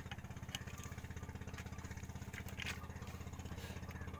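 A boat engine running steadily at idle, a fast, even chugging pulse, with a few short knocks over it.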